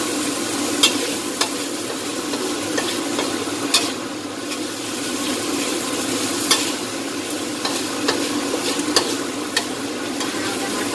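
Stir-fry sizzling in a metal wok while a metal spatula scrapes through the long beans and tempeh, with sharp clacks of the spatula against the pan every second or two.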